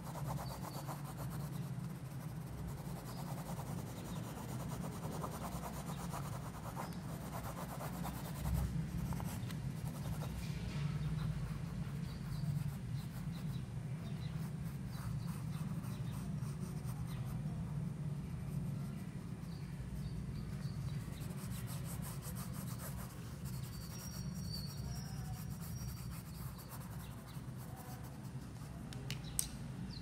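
Graphite pencil rubbing and scratching on sketchbook paper while shading, over a steady low hum.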